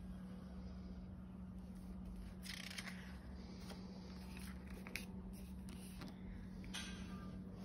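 Paper pages of a folded dummy book rustling and sliding on a tabletop as they are unfolded and pressed flat. There are a few light taps and a longer rustle about two and a half seconds in, over a steady low hum.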